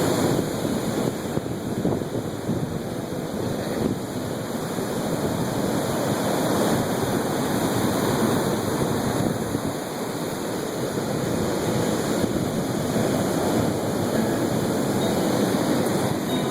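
Ocean surf washing in as a steady rush that swells and eases, with wind on the microphone.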